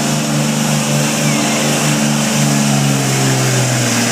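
A pulling vehicle's engine running loud and steady at high revs, its pitch stepping down slightly about two thirds of the way through.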